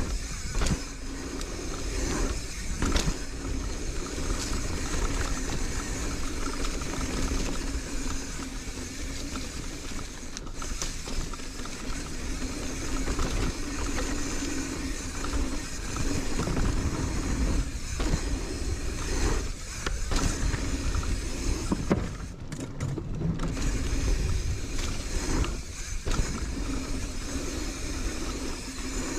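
Marin San Quentin hardtail mountain bike descending a dirt bike-park trail: a continuous rumble of tyres on the ground with frequent clicks and knocks from the bike rattling over bumps.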